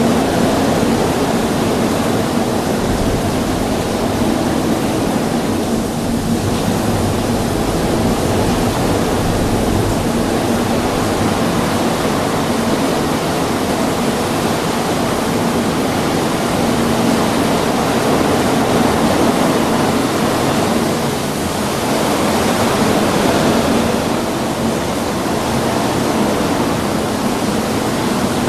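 Heavy rain pouring steadily during a thunderstorm.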